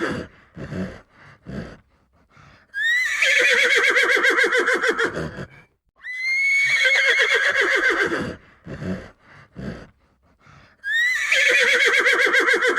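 Horse whinnying three times, each neigh about two and a half seconds long with a quavering pitch that starts high and settles lower, with short, softer sounds in the gaps between.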